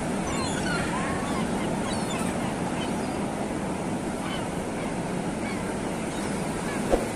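Steady wash of sea surf and wind, with a few short high calls in the first two seconds and a single sharp click near the end.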